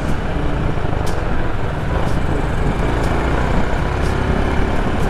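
Steady low rumble of motor vehicles and street traffic.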